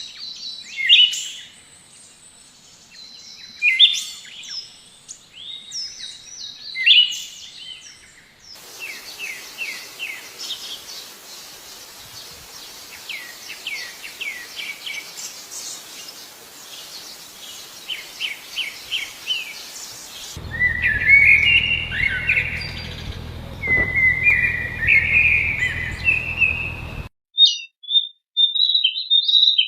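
Several different songbirds singing in turn, with abrupt cuts between recordings. First come loud separate whistled phrases, then a long run of quick short chirps over a hiss, then warbling song over a low steady hum, and near the end brief high chirps with gaps between them.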